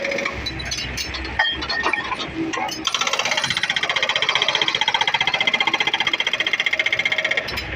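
Excavator-mounted hydraulic breaker hammering, with the excavator's diesel engine rumbling underneath. Scattered clanks for the first few seconds, then steady rapid hammering from about three seconds in until just before the end.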